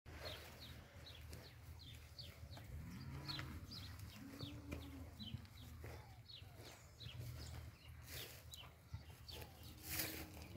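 Birds chirping repeatedly in the background, short high falling chirps several times a second, over a low steady hum. A brief louder rushing noise comes about ten seconds in.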